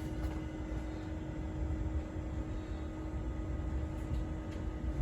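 Steady low hum of a Compaq 286 luggable computer running, its cooling fan and drives whirring with a constant low tone while Windows loads.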